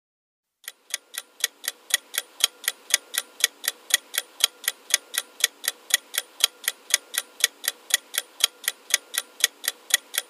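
Clock-ticking sound effect counting down the 10-second answer time in a quiz: even, sharp ticks, about four a second, starting just under a second in.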